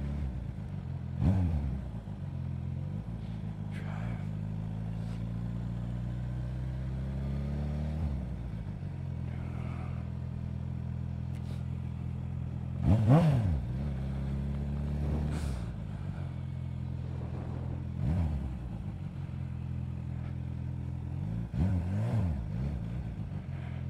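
Kawasaki H2 SX SE's supercharged inline-four engine running at low parking-lot speed, with the pitch rising and falling in short throttle blips four times, the loudest a little past the middle.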